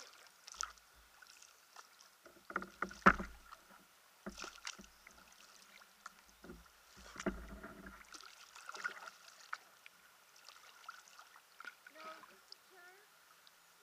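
Kayak paddles dipping into calm water: intermittent splashes and drips from the blades, with a few knocks, the loudest and sharpest about three seconds in.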